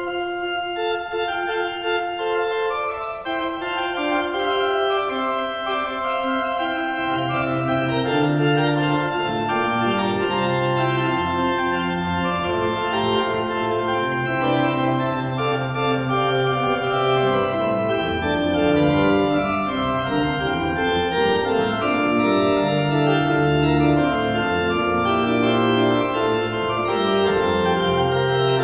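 Pipe organ playing a piece in several parts: the upper parts on the manuals alone at first, then a deep pedal bass line joins about seven seconds in.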